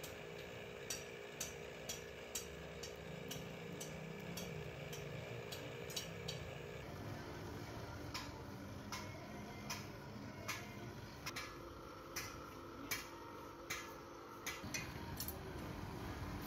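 Regular sharp ticking, about two ticks a second, over a steady low hum, from an electric air blower feeding a charcoal forge fire. The hum changes pitch about seven seconds in.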